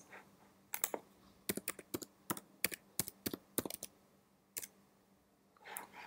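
Typing on a computer keyboard: a string of light, sharp key clicks in uneven quick runs, then one last click after a pause.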